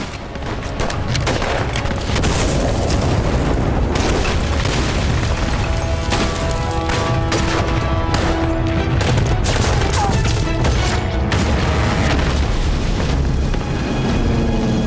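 Battle sound effects: heavy explosions and rifle gunfire, with dramatic orchestral music coming in about six seconds in.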